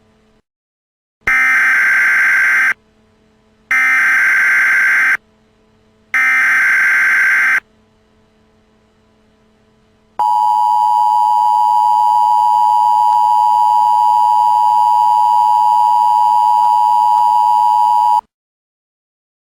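Emergency Alert System signalling: three short, harsh digital data bursts in a row, then a couple of seconds later the steady two-tone EAS attention signal, held for about eight seconds before it cuts off.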